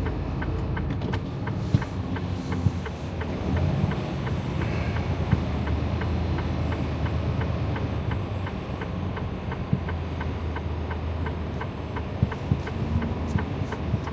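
Freightliner Cascadia semi truck's diesel engine running at low speed, heard inside the cab, with the turn-signal or hazard flasher ticking steadily over it.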